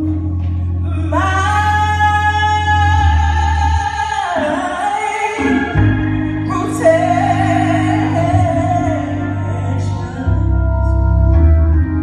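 Woman singing a gospel song live, holding long notes, over the sustained chords of a Hammond B3 organ. The low organ notes drop out about four seconds in and come back about two seconds later.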